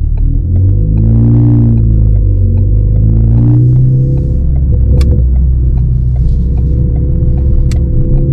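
2018 Ford Focus ST's turbocharged 2.0-litre four-cylinder droning low through its Roush exhaust on the move, the note swelling and easing off twice in the first few seconds. Two sharp pops come about halfway through and near the end, typical of its Stratified crackle tune.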